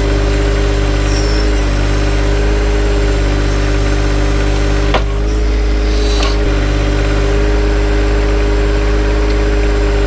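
John Deere 1025R compact tractor's three-cylinder diesel running steadily while driving the backhoe, with a steady whine over the engine note. One sharp knock about five seconds in.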